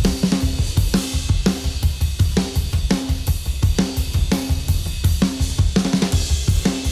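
Playback of a rock drum-kit recording: a fast, steady punk beat with a ringing snare about twice a second over kick drum and constant cymbals. The kit is a Tama Starclassic with a 26-inch kick, miked with only four dynamic microphones.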